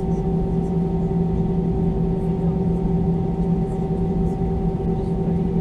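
Steady cabin noise of an Airbus A320-214 taxiing on idle power: the hum of its CFM56-5B engines, with a few steady tones over a low rumble.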